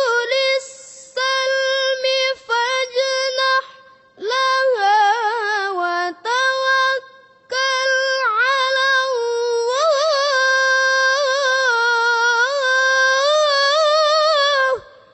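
Melodic Quran recitation (tilawah) in a single high, clear voice with ornamented turns on the notes. It comes as short phrases with brief breaths, then one long held, ornamented phrase that ends shortly before the close.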